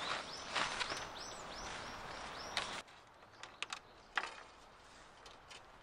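Tent fabric rustling as it is shaken out and unfolded, with a bird calling over and over, about three calls a second. Near the middle the sound drops away, followed by a few sharp metal clicks of a deck peg being set on the wooden deck boards.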